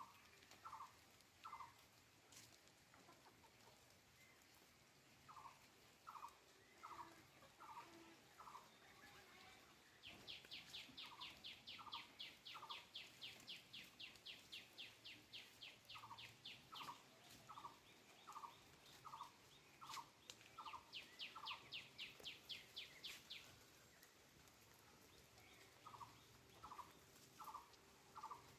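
Faint animal calls: bouts of short notes repeated about four times a second, and from about ten seconds in, a fast, high pulsing trill that runs for some thirteen seconds.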